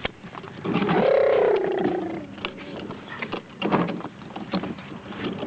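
A toddler's wordless voice: one drawn-out, wavering sound lasting about a second, starting about a second in, then a shorter noise a little later. Scattered small clicks run underneath.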